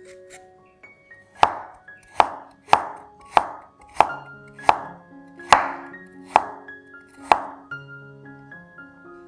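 Kitchen knife slicing fresh turmeric root on a wooden cutting board: nine crisp knocks, a little under a second apart, starting about a second and a half in and stopping near the end. Soft background music plays underneath.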